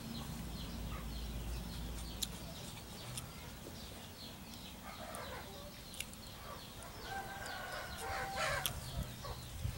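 Chickens clucking in short calls, loudest near the end. Between them come light clicks and scrapes of a metal spoon against coconut shell.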